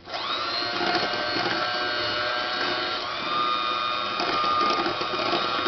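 Electric hand mixer switched on at medium speed, its motor whine rising briefly as it spins up and then running steadily, beating cheesecake filling mix and milk.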